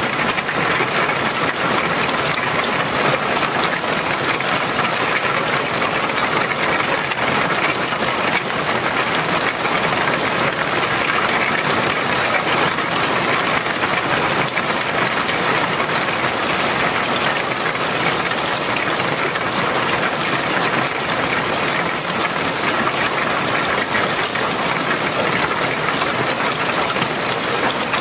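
Heavy downpour on clay-tiled roofs, with rainwater pouring off the eaves in streams: a loud, steady, dense hiss of rain that holds unchanged.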